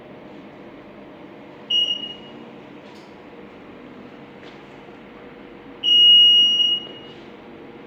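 A GE mobile X-ray unit's buzzer sounds two high single-pitch beeps over a steady faint hum: a short one about two seconds in and a longer, louder one of about a second near six seconds. This is the tone that sounds while the exposure hand switch is held during an X-ray exposure.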